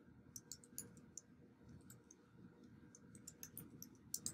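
Faint typing on a computer keyboard: a run of quick keystroke clicks in the first second, a few scattered ones, then another quick run near the end.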